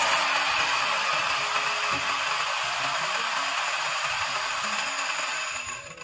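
Two 64 mm flat-burr electric coffee grinders (HB64 V2 and V3 with SSP burrs) grinding coffee beans at the same time. The loud, steady grinding noise starts suddenly and tails off near the end as the grinding finishes.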